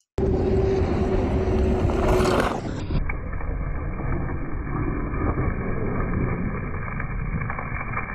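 Wind buffeting the microphone of an outdoor video, a steady rumbling rush, with a steady whine through the first two and a half seconds. About three seconds in, the sound turns duller and more muffled and carries on as a low rush.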